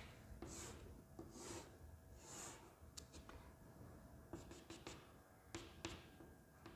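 Faint chalk on a chalkboard: three short scraping strokes, as a triangle is drawn, then a run of quick taps and clicks as a dashed line is dotted on.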